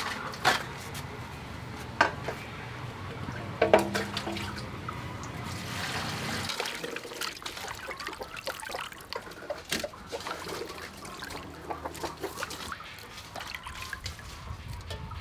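Raw salmon fins being washed by hand in water in an aluminium bowl: sloshing, trickling and dripping with many small irregular splashes. A few sharp knocks in the first four seconds as the fins and plate go into the metal bowl.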